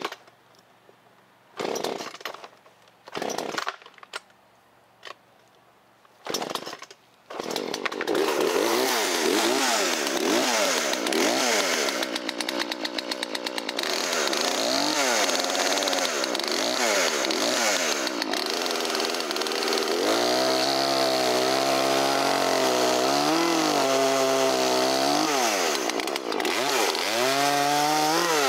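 Vintage Poulan 33-14 Wood Shark two-stroke chainsaw being pull-started: three short pulls on the starter cord, then the engine catches about seven seconds in and runs, revving up and down before holding a steadier, wavering speed.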